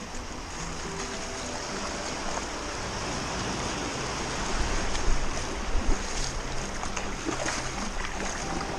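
Sea waves washing with a steady rush of noise, wind buffeting the microphone, and a couple of sharp knocks about five and six seconds in.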